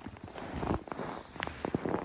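Crunching and scuffing in snow with sharp clicks, the handling noise of someone moving at an ice-fishing hole while pulling in tip-up line by hand.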